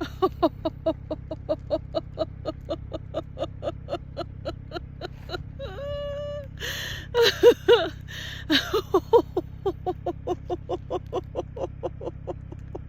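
A person laughing without a break in a steady run of "ha-ha" pulses, about four or five a second. About six seconds in the laughter turns into a short held, higher note, then comes back in louder, fuller bursts before settling into the even rhythm again.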